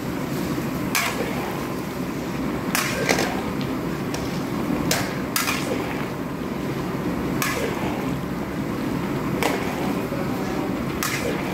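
A spatula scraping and knocking against a large metal pan while stirring thick paella, with a knock every second or two over a steady low rushing underneath.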